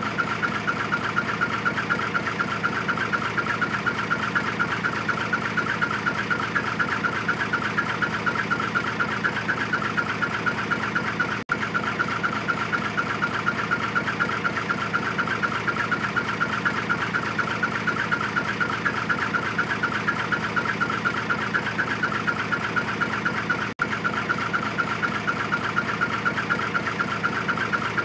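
Hino Profia dump truck's diesel engine idling through a dual-tip ("W") muffler: a steady, fast-pulsing "chun chun chun" exhaust note with a strong mid-pitched ring. The sound drops out for an instant twice.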